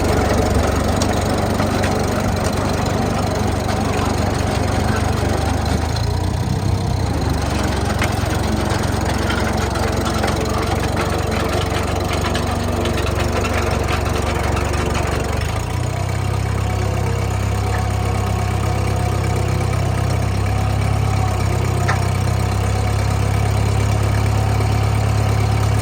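Clark-Air CA-1 airborne bulldozer's engine running steadily with a strong low hum, which shifts slightly and grows a little stronger past the middle.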